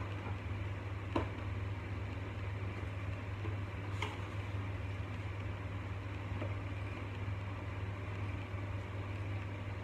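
A steady low hum, with two faint clicks of headphones being pressed into their plastic packaging tray, about a second in and again about four seconds in.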